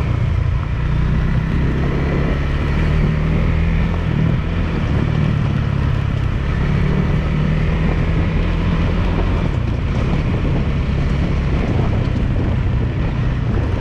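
KTM 390 Adventure's single-cylinder engine running under way, its pitch rising and falling slightly with the throttle, over wind noise on the microphone.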